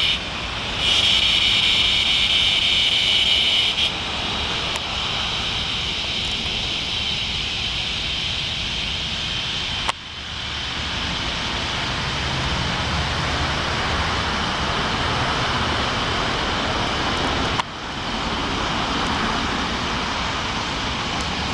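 Chorus of northern dusk singing cicadas (Tibicen auletes) massed in an oak tree: a loud, steady, high buzz that drops out briefly at the very start. After about four seconds it gives way to a softer, wider steady hiss, with two short breaks later on.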